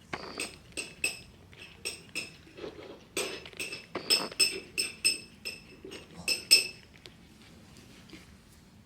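Light clinks ringing at a cat's food bowl as a cat eats, about twenty irregular strikes over some seven seconds, the loudest near the end, then stopping.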